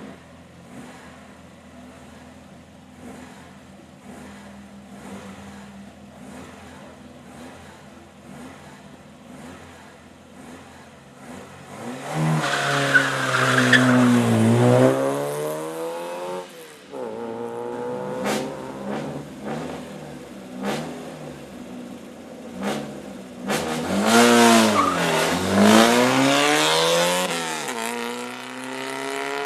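Hill-climb race car engine passing twice at racing speed, about 12 seconds in and again about 24 seconds in, with a fainter car engine heard before. On each loud pass the engine pitch falls and then climbs again, and a few sharp cracks come between the passes.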